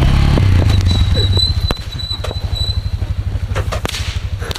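Yamaha XT600 single-cylinder four-stroke engine running as the bike passes close and pulls away, the engine sound dropping after about a second and a half. Sharp pops from Roman candles being fired at the rider come several times, more of them near the end.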